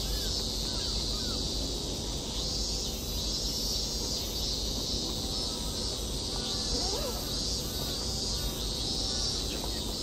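A chorus of cicadas buzzing, a high, shrill drone that swells and fades every second or two, with faint scattered calls and voices underneath.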